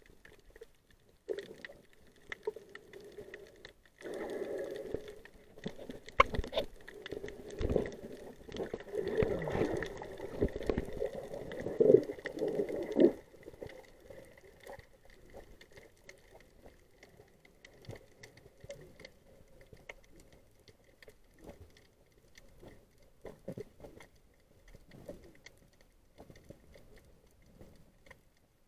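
Muffled underwater water noise picked up through a camera's waterproof housing. It is fairly loud with knocks and sloshing in the first half, drops away sharply about halfway through, and then only faint scattered clicks and crackles are left.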